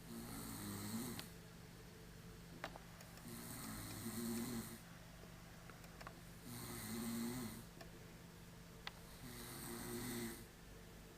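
A man snoring in sleep: four rough, rattling snores about three seconds apart, each lasting about a second.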